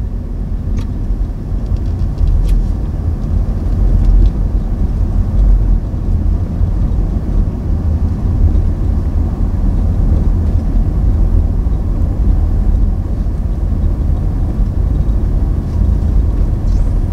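A 5th-gen Toyota 4Runner driving slowly, heard from inside the cabin: a steady low rumble of engine and tyre noise.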